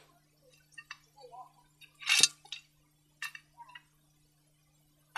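Bricks being lifted off the fire and set down: scattered clinks and knocks, with one louder clatter about two seconds in.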